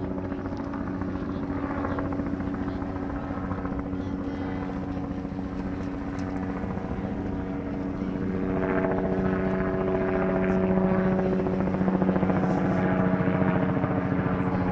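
A helicopter's steady rotor and engine drone, with a fast pulsing beat, growing louder about eight seconds in.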